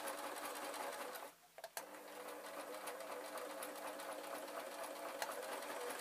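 Singer sewing machine stitching a seam through thin sock fabric, running steadily. It stops for about half a second just over a second in, with a click or two, then starts sewing again.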